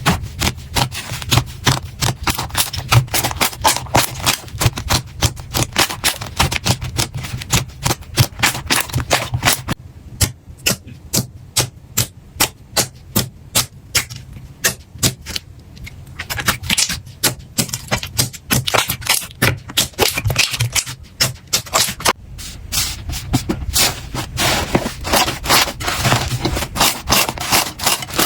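Slime being squeezed and poked by hand, giving a fast, continuous run of sharp clicks and pops. It goes softer for a few seconds in the middle.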